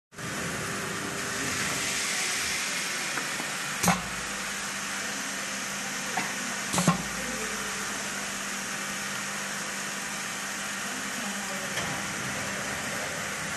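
Steady sizzling hiss of batter baking on the hot plates of a round rotary waffle sheet baking machine, with a low steady hum under it. Two sharp metal clanks about 4 and 7 seconds in, and a few lighter clicks.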